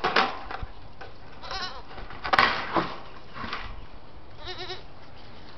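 Young Alpine and Saanen/Alpine goat kids bleating: about six short, quavering bleats, the loudest about halfway through.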